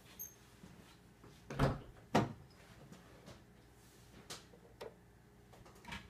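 Two dull thumps about half a second apart, then a few lighter knocks, from hands working a hood release cable through its passage behind the fuse box.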